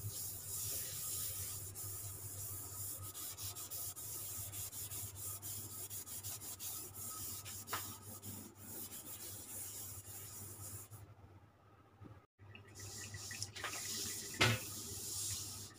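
Coarse green scouring pad scrubbing a smooth countertop coated with degreaser spray, a steady rasping rub with light strokes. There is a short break about three-quarters of the way through.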